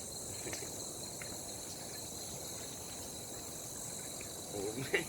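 Steady, high-pitched chorus of insects buzzing, with a few faint ticks.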